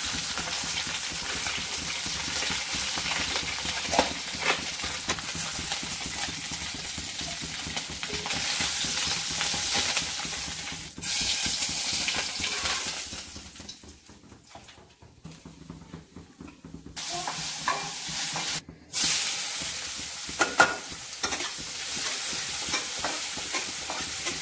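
Pieces of magur catfish sizzling in hot oil in a kadai, stirred with a metal spatula that clicks and scrapes against the pan. The sizzle dies down for a few seconds just past the middle. After a sudden break, chopped onions sizzle in the pan as they are stirred.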